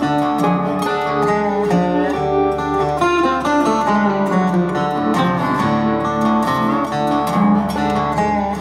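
Background music led by plucked acoustic guitar, playing steadily.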